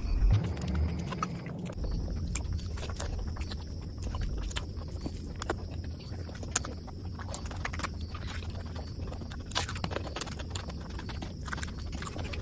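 Close-miked chewing with many short wet mouth clicks and lip smacks from a person eating big mouthfuls of curried meat and rice by hand, with a heavier low thud in the first second or two.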